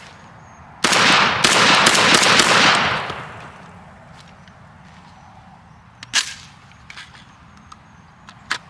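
Molot Vepr-12 12-gauge semi-automatic shotgun fired in a rapid string of shots over about two seconds, with the echo dying away. Two single sharp cracks follow later on.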